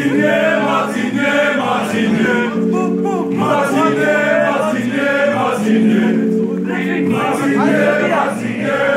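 Music: several voices singing over sustained held chords that change every second or two.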